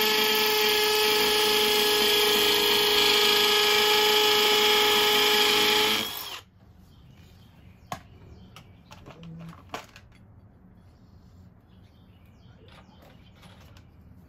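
Cordless hammer drill boring into cement, running at a steady high whine, then stopping abruptly about six seconds in. A few faint clicks follow.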